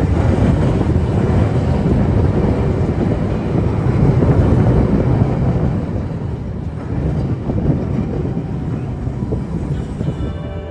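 Open-top boat tram rolling along its rails: a steady, loud rumble of wheels and running gear, easing off a little about halfway through.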